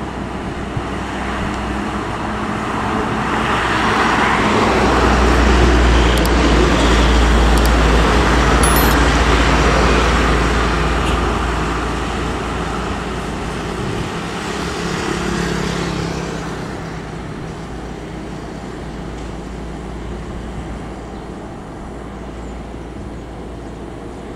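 Road traffic of motorbikes, cars and buses, with a heavy vehicle's deep engine rumble swelling to a peak about a quarter of the way in, then fading away.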